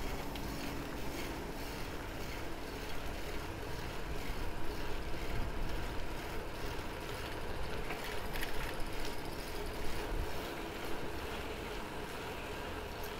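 Steady rush of wind on the microphone and road noise from a bicycle rolling along asphalt, with a brief cluster of light clicks about eight seconds in.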